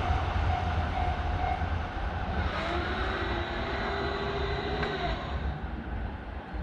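Train running past: a low rumble that eases off gradually, with a few faint thin squealing tones over it.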